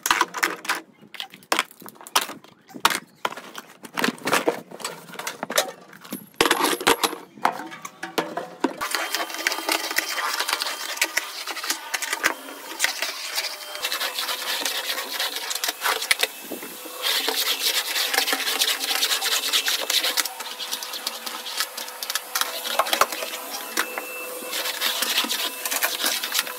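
Clicks and knocks of things being handled. About nine seconds in, a vacuum cleaner starts up and runs steadily with a motor whine, its loudness shifting as it is moved around.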